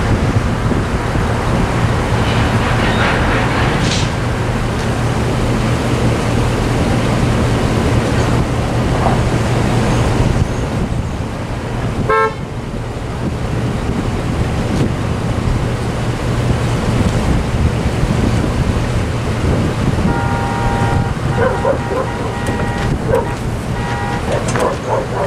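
Steady outdoor rumble of wind and road traffic at a railroad level crossing. About twenty seconds in, a ringing signal of several pitched tones starts, repeating in short pulses.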